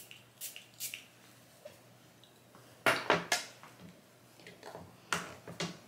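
A glass Miss Dior perfume bottle being handled with small clicks and clinks, and its atomizer giving a few quick sprays onto a paper napkin. There is a cluster of short bursts about three seconds in and two more near the end.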